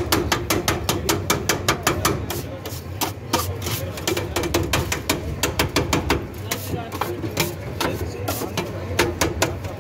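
A metal spatula clattering rapidly against a flat steel griddle, chopping and crushing grilled chicken for shawarma, several sharp strikes a second, over background chatter.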